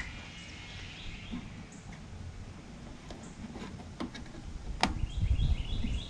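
Handling and tool noises from working on a scrap microwave oven, with a single sharp click about five seconds in. A bird chirps in quick repeated notes near the end.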